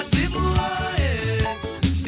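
Background music: a song with a bass line, drum beats and a sung melody.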